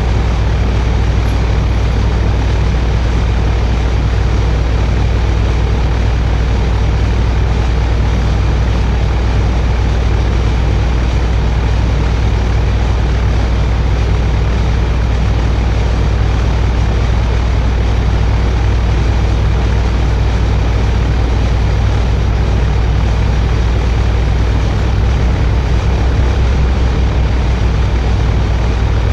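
Live electronic noise music from a rig of effects pedals and electronics: a loud, unbroken wall of harsh noise over a heavy steady low drone. Near the end the deepest rumble starts to flutter in a fast pulse.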